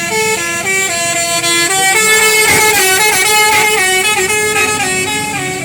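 Indonesian bus telolet horn of the basuri type playing a melody, several horn tones sounding together and stepping from note to note every fraction of a second, loud.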